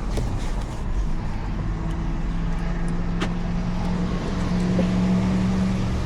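Audi Q5's engine running with a steady hum that steps up in pitch about four seconds in. A single click comes about three seconds in.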